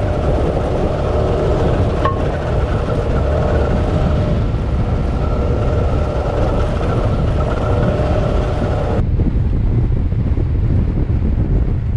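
Suzuki V-Strom 650 adventure motorcycle running along at speed, its steady engine note under heavy wind rumble on the helmet-mounted microphone. About nine seconds in the engine note drops away abruptly as the throttle is closed, leaving mostly wind and road rumble.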